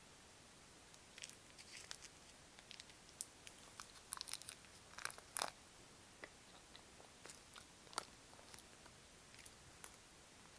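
Faint scattered clicks and light crackles of small plastic pieces being handled: long red press-on nails being fitted, with a denser cluster of clicks about four to five seconds in.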